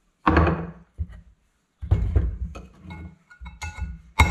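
Steel hammer striking a punch held against an engine flywheel: a heavy thunk near the start, then a run of quicker, lighter taps from about two seconds in, with a faint metallic ring, ending in a harder blow.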